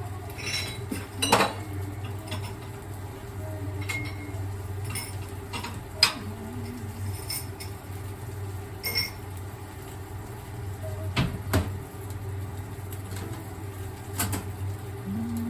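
Dishes and cutlery clinking: scattered light clinks and knocks of utensils against plates or bowls, a dozen or so at uneven intervals, over a steady low hum.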